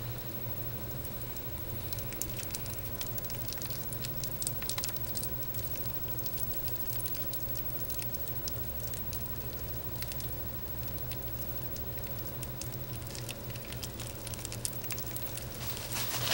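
Faint, scattered crackling and rustling of a shedding Argentine boa's body sliding against its loosened old skin and its mate's coils, over a steady low electrical hum.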